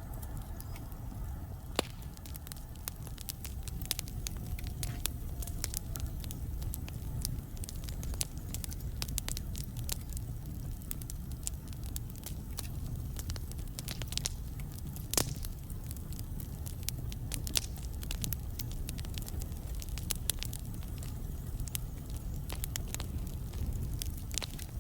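Wood fire burning in a fireplace: a steady low rumble of flames with irregular crackles and pops from the burning logs, two of them sharper and louder, about 2 seconds and 15 seconds in.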